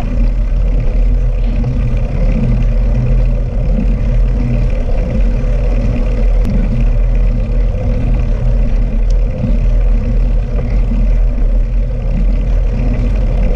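Wind buffeting the bare microphone of a bicycle-mounted GoPro Hero 5 used without its housing, mixed with the hiss of bike tyres rolling on wet asphalt. A loud, steady low rumble.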